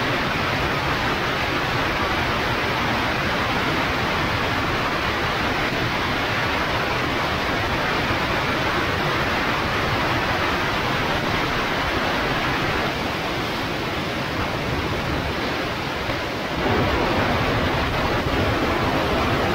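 Steady rushing wind noise on a camera mounted on a Zenith CH 650 B light aircraft as it comes in to land and rolls out along the runway. It eases a little past the middle and grows louder again for the last few seconds.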